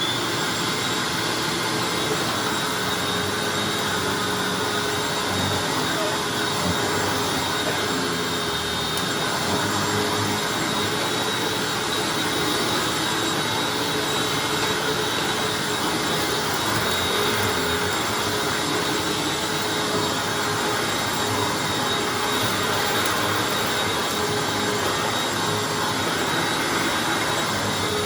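Hoover Anniversary upright vacuum cleaner running steadily on a rug, a constant motor whine over the rush of suction.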